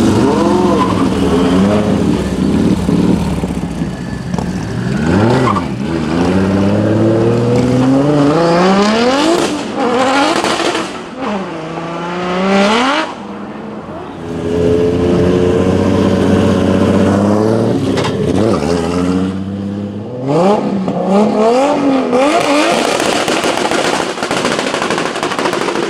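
Engine of a Nissan 180SX drift car revved hard again and again, its pitch sweeping up and dropping back, with tyres spinning and squealing as it does a burnout.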